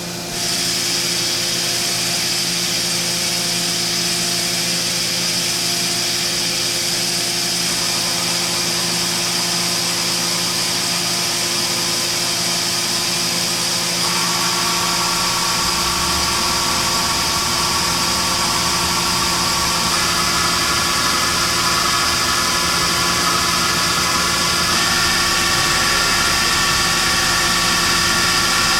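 Mazak Nexus 510C CNC vertical machining center running, a steady hum and hiss with a whine that steps up to a higher pitch several times.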